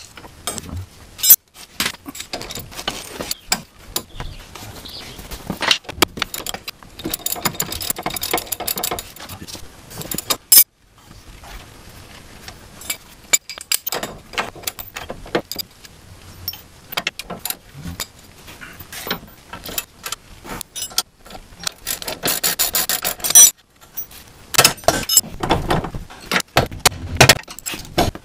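Hand ratchet clicking and metal wrenches clinking against the steering knuckle while the lower ball joint's pinch bolt and nut are loosened and taken off, with two longer runs of fast clicking, one about a third of the way in and one near the end.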